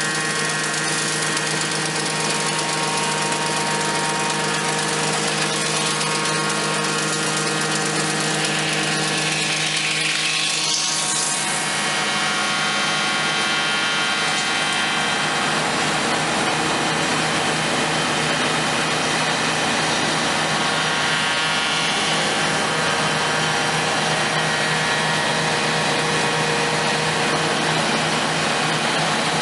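Altai ChN280 log-notching machine running steadily, a continuous mechanical whine made of several steady tones over a noisy hiss. About ten seconds in, a high whine drops in pitch and climbs back up again.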